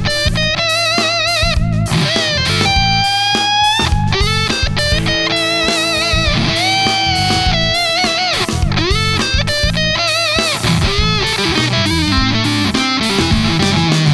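Electric guitar playing a melodic lead through a Fattoria Mendoza effects pedal, with long sustained notes, string bends and vibrato, over a backing of bass and drums.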